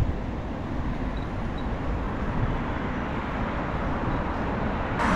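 Steady city street traffic noise, a low rumble of passing vehicles.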